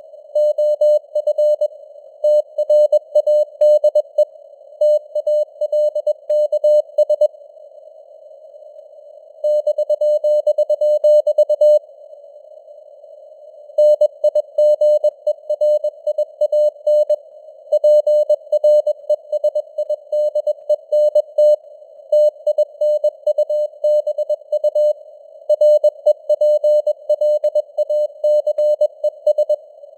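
Morse code at 21 words per minute: a single steady tone keyed on and off in dots and dashes over a narrow band of receiver-style hiss. The signal strength varies as simulated fading (QSB). The keying stops twice for about two seconds, leaving only the hiss.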